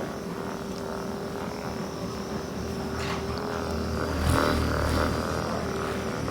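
A steady mechanical hum, like a small motor running, with a few faint clicks and a knock about four seconds in.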